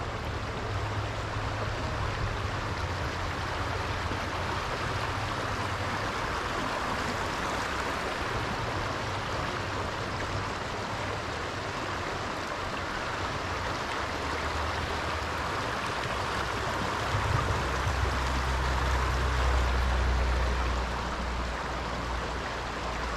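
Water of a small stream running steadily over rocks in a shallow riffle. A low rumble swells for a few seconds about three quarters of the way through.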